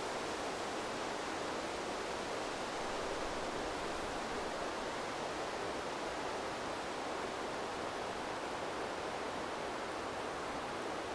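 River water flowing in a steady, even rush, with no change through the stretch.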